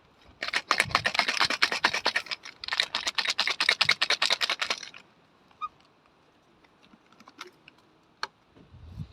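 Two runs of rapid scratchy clicking, each about two seconds long, then a few scattered single taps.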